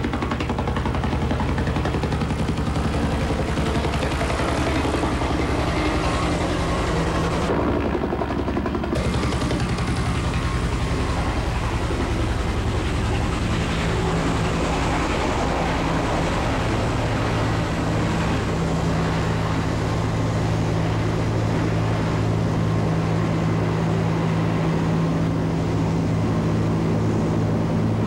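Military helicopter flying close by: a steady, rapid beat of the rotor blades over the engine noise, with a deeper drone coming in over the second half.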